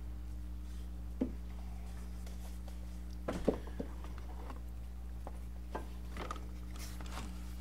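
A few light knocks and rustles as a serpentine belt is handled and fed in among the engine's pulleys, the loudest cluster about three and a half seconds in, over a steady low electrical hum.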